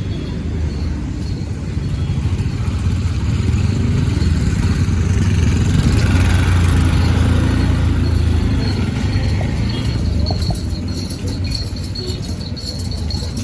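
Train running: a steady low rumble that swells to its loudest in the middle, with some light rattling near the end.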